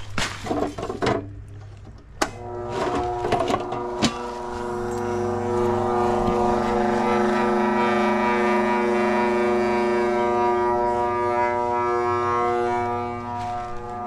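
A heat pump package unit energised with its condenser fan motor wired straight to the contactor: a sharp click about two seconds in, then a steady droning hum from the unit that builds over a few seconds and holds. The fan motor does not come on even with direct power, which the technician takes as a failed motor needing replacement. Footsteps and handling clicks come before the hum.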